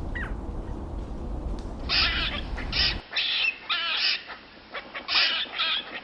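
Animal calls: a run of short, harsh squawking calls repeated about eight times, starting about two seconds in, over a steady background hiss that stops about halfway through.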